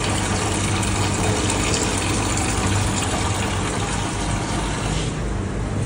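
Water rushing and gushing over a steady low machine hum, typical of water being pumped or flushed through a drain.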